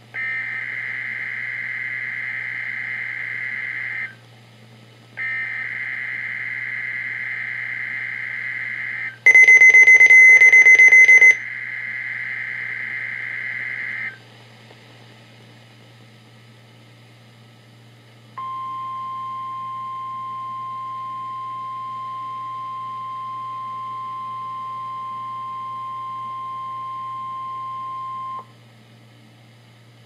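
NOAA Weather Radio weekly test tones on a Midland 74-200 weather radio: three warbling digital SAME header bursts of about four seconds each. During the third burst the radio's own alarm gives a very loud, high, rapid beeping for about two seconds. After a pause a steady 1050 Hz alert tone holds for about ten seconds.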